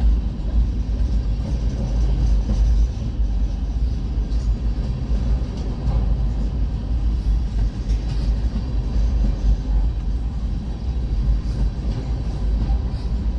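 Freight train cars rolling past a crossing: a steady, heavy rumble of wheels on the rails, with faint scattered clicks and rattles.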